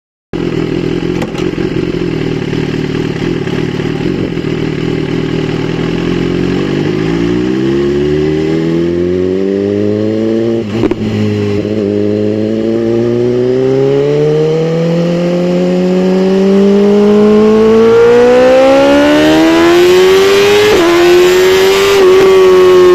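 BMW S1000RR's inline-four engine running, steady at first, then climbing steadily in revs for the rest of the clip, with brief dips in pitch about halfway through and near the end.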